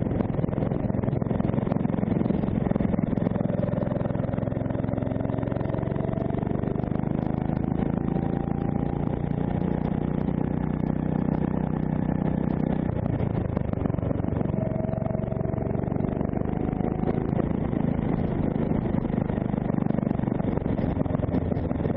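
D&M 270cc four-stroke kart engine running hard on a lap, its pitch climbing as it accelerates, dropping sharply about thirteen seconds in, then climbing again.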